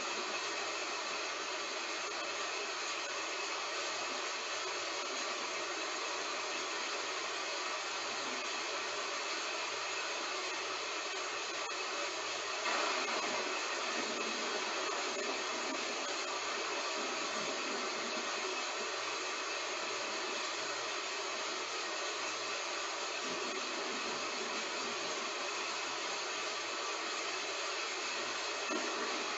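Heavy rain falling in a steady hiss, with a brief louder surge about thirteen seconds in.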